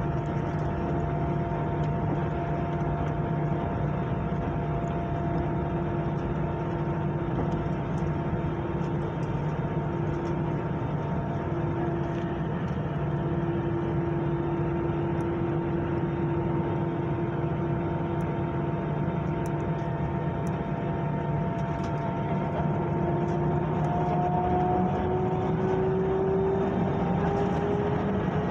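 Jet airliner's engines heard inside the passenger cabin: a steady rumble with a constant whine. Near the end the whine rises in pitch and grows a little louder as engine thrust increases, the spool-up for the takeoff roll.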